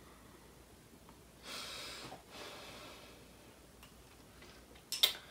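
A person breathing out through the nose: two short exhales, then a sharp click near the end.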